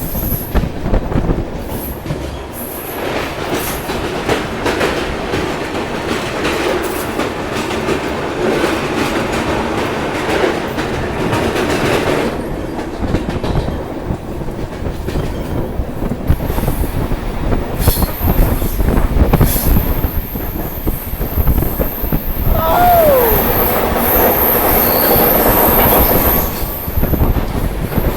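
Passenger train heard from on board, its wheels rumbling and clattering over the rail joints. A thin, high-pitched wheel squeal joins about two-thirds of the way through and runs on, with a short falling tone partway along it.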